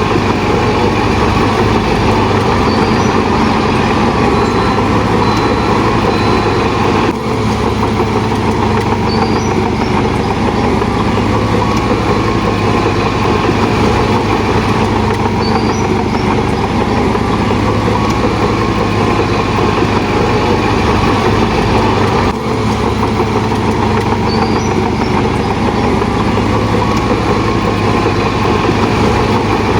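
Heavy diesel engine of a crawler bulldozer running steadily and loudly at work, with two brief dips about 7 and 22 seconds in.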